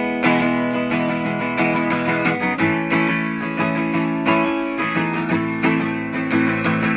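Music: acoustic guitar strummed in a steady rhythm, chords ringing between the sung lines of the song.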